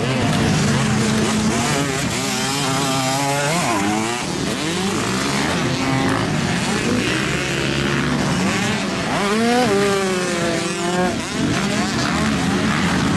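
Motocross dirt bike engines revving as riders accelerate and ease off around the track, the pitch climbing and dropping with each run of throttle, most clearly about two seconds in and again around nine seconds in.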